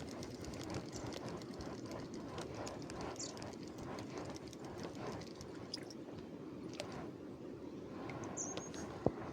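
Footsteps crunching irregularly along a stony stream bank over the steady rush of running stream water, with a couple of short high chirps and one sharp knock near the end.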